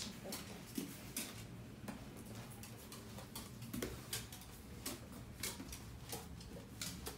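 Light, irregular clicks and taps of steps on wooden stair treads, about two a second.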